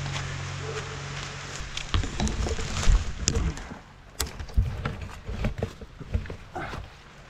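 Footsteps crunching over snowy woodland ground, an uneven run of steps starting about two seconds in, after the tail of background music that fades out early on.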